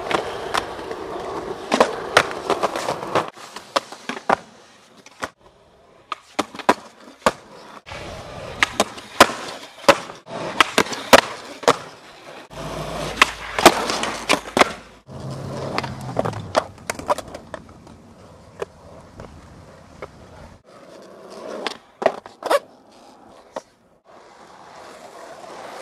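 Skateboard wheels rolling on concrete, with many sharp clacks of tail pops and landings and the board scraping along a concrete ledge. The rolling sound changes abruptly several times.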